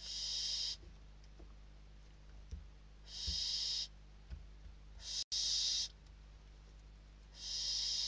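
Barn owl chicks hissing in the nest box: four rasping hisses of under a second each, with a few soft thumps of the chicks shifting on the nest floor. The hisses are the chicks' hunger calls as they compete over a delivered prey bird.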